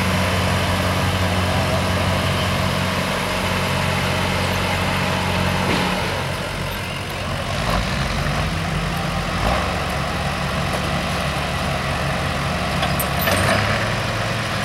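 Pickup truck engine idling steadily while hooked to a pulling sled at the start line. The engine note shifts a little about seven seconds in.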